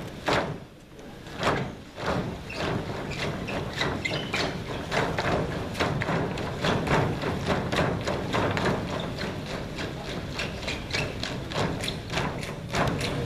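Many dancers' sneakers landing together on a stage floor as they jump in unison, a quick, even rhythm of thuds that picks up again after a brief lull near the start.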